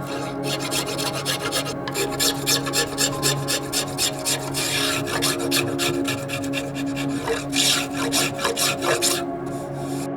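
Quick rasping strokes of a hand tool shaping wood, about three strokes a second, stopping about a second before the end. Soft ambient music plays underneath.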